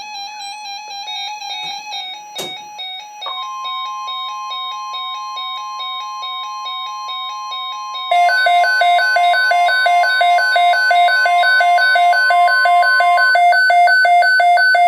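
NOAA Weather Radio warning alarm: a steady single-pitch tone starts about three seconds in and holds for about ten seconds, the signal that an alert such as a flood watch follows. Electronic stepping beeps run beneath it, and about eight seconds in a much louder, rapidly pulsing two-pitch electronic beeping joins and keeps going.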